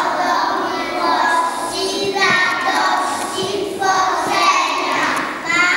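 A group of young children singing together in unison into microphones.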